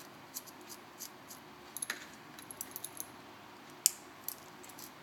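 Small metal tools clicking and scraping against the parts inside an opened iPhone 4S as the antenna is pried loose: faint, irregular light ticks, with a sharper click about four seconds in.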